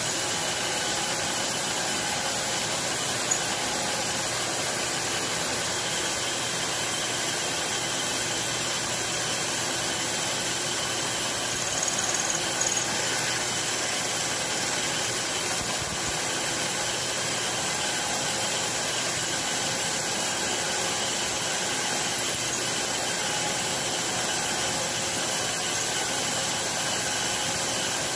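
CNC milling machine drilling metal parts, with a steady hiss from the mist coolant spray aimed at the drill.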